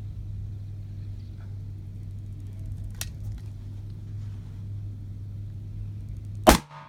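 Single loud 6.5x47 Lapua precision rifle shot near the end, over a steady low hum. The shot scores a hit on the steel target.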